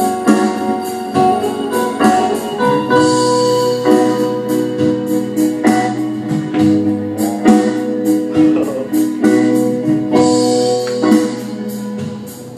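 Instrumental music with held keyboard chords over a steady beat, playing as a backing track.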